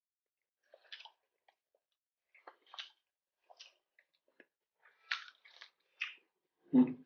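Close-up mouth sounds of eating crispy fried calamari and battered shrimp tempura: scattered short crunches and wet chewing, with one louder, deeper sound near the end.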